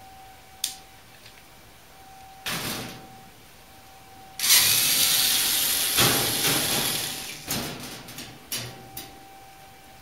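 Cordless drill/driver backing screws out of a sheet-metal cover plate on a clothes dryer's back panel: a short run about two and a half seconds in, then a longer, louder run from about four and a half seconds that tails off, followed by a few small clicks as the plate is handled.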